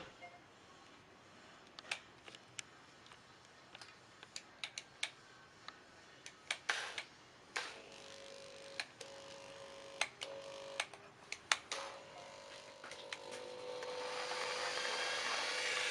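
Clicks and knocks of the Modern M-2200L jigsaw and its fittings being handled. About halfway through, the jigsaw's motor is switched on in a few short bursts, then runs steadily over the last few seconds with a rising hiss.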